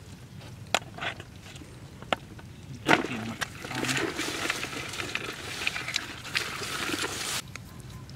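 Crab-catching noises in wet, muddy grass: a few light knocks, a louder knock about three seconds in, then several seconds of wet rustling and splashing that stops abruptly near the end.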